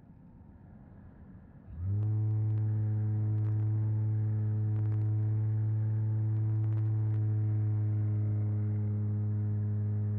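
A model aircraft's motor and propeller: quiet air rush at first, then about two seconds in the motor comes on and runs with a loud, steady hum of one even pitch.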